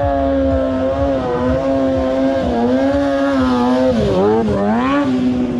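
Stunt sport motorcycle's engine held at steady high revs through a wheelie, the pitch dipping and climbing back up again about four seconds in.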